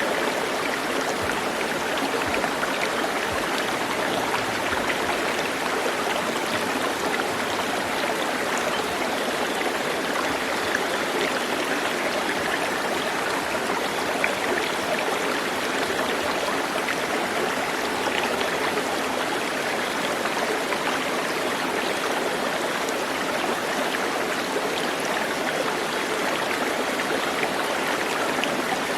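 Steady rush of running water, like a stream.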